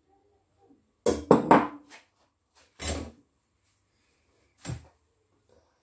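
Bowl and utensil clatter on a kitchen counter: a quick cluster of knocks about a second in, the loudest, then single knocks near three and near five seconds, as a dark serving bowl is handled and set down among the ingredient bowls.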